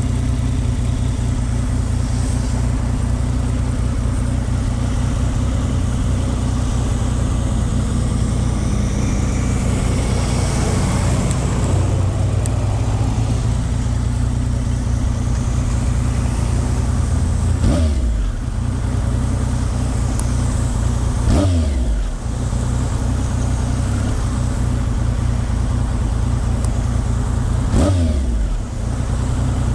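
Triumph Speed Triple 955i's three-cylinder engine running steadily while riding, with the revs dropping sharply three times in the second half.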